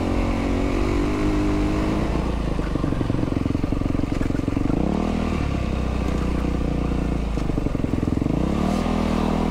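Yamaha WR450F's single-cylinder four-stroke engine running under way on a dirt road. Its pitch drops and then climbs sharply about halfway through and again near the end as the throttle is rolled back on.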